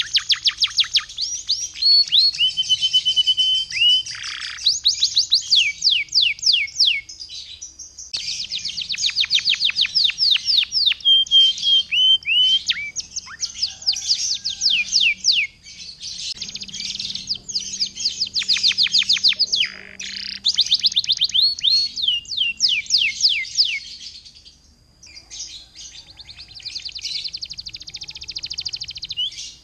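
Yellow domestic canary singing continuously: long rolling trills of very rapid falling notes, mixed with a few held whistled notes, in phrases broken by short pauses.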